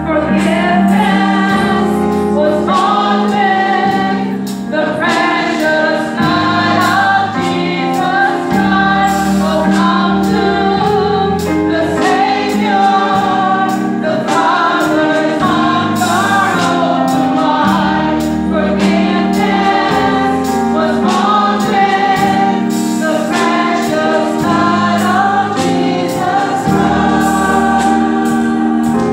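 Gospel choir singing with band accompaniment: held bass notes under many voices, with sharp percussive hits through it.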